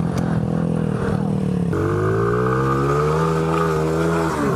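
Small pit bike engine running hard under throttle as the bike climbs a dirt hill, its pitch wavering up and down, with a change in tone about two seconds in.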